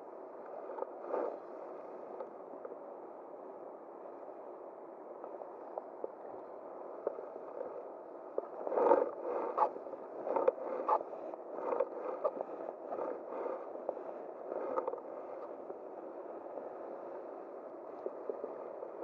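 Steady rush of flowing stream water, with scattered clicks and scrapes close to the microphone from about 8 to 15 seconds in.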